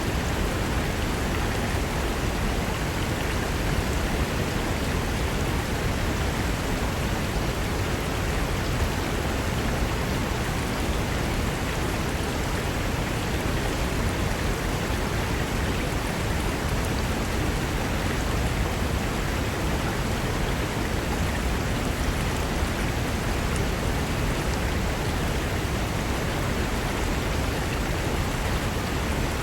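Mountain river rushing over rocks: a steady, even wash of water noise with no breaks.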